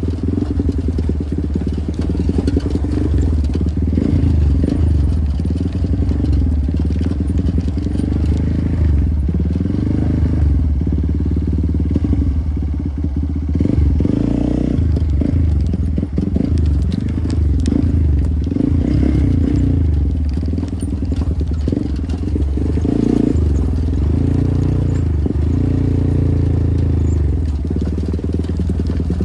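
Motorcycle engine running while riding, its note rising and falling with the throttle, with some clatter from the bike over rough ground.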